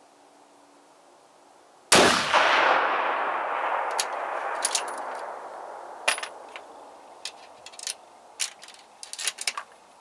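A rifle shot about two seconds in, its echo rolling away and fading over about four seconds, followed by a series of short metallic clicks and clacks as the rifle's bolt is worked to chamber the next round.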